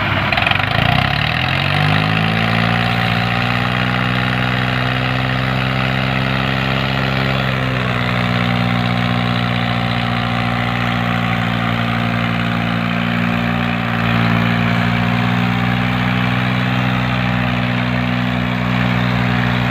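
Diesel engines of three tractors chained in tandem, revving up over the first two seconds and then running steadily under heavy load as they tow a loaded trolley out of soft paddy-field ground. The pitch drops slightly about eight seconds in.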